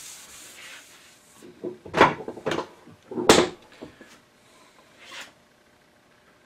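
Fine wood shavings rubbing over a hand-planed quilted maple board, fading out in the first second or so, then a series of wooden knocks and clunks, the loudest about two and three seconds in, as the board is handled on the wooden workbench.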